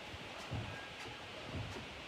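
Single church bell rung by hand on a rope, heard from inside the church. Its tone fades out between strikes, with dull low thuds about once a second.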